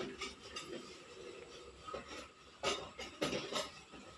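Faint, scattered clinks and scrapes of a spoon and hands working food in brass plates and bowls, over quiet room noise.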